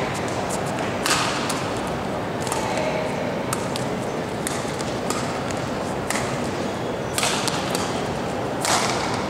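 Badminton rally: sharp cracks of rackets striking a shuttlecock about once a second, over the steady background noise of a sports hall with spectators.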